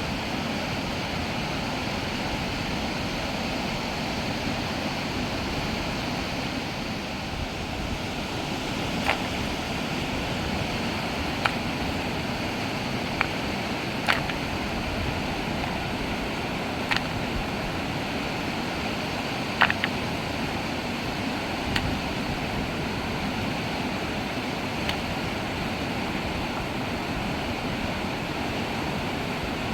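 Steady rushing of flowing river water, with a handful of short sharp clicks or knocks at irregular intervals through the middle.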